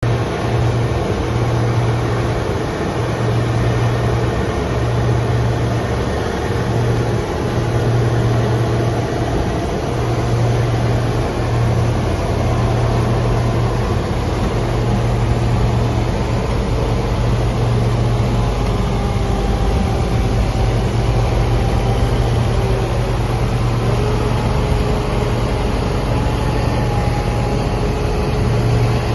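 Heavy diesel harvest machinery running steadily at working speed: a deep, even engine drone with fainter whining tones above it.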